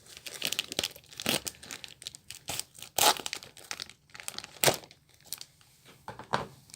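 Packaging crinkling and tearing in irregular crackles as it is cut and pulled open by hand.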